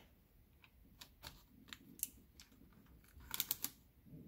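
Scattered light clicks and crackles of plastic window tint film being handled against a truck's wet rear glass, with a quick cluster of sharper crackles a little past three seconds in.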